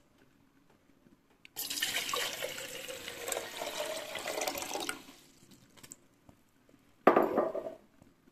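Water poured from a glass jug into a stainless steel teapot, splashing and filling for about three seconds. A short, loud clank follows near the end.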